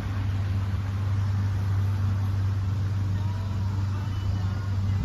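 Pontoon boat's outboard motor running at a steady speed: a constant low drone with no change in pitch.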